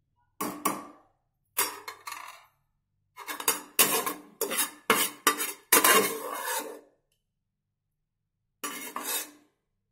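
A metal spoon scraping and knocking against the inside of a pressure cooker pot as it scoops out the cooled roasted masala, in short bursts of strokes with pauses between them.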